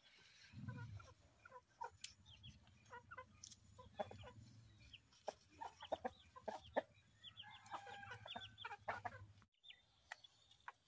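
Faint clucking of chickens, many short calls one after another, with a few sharp clicks between them.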